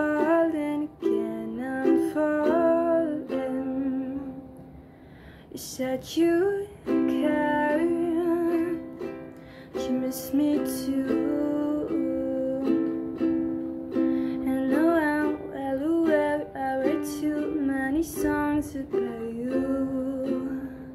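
Ukulele strummed in slow chords, with a woman singing a soft ballad over it. The music drops quieter about four seconds in, then picks back up.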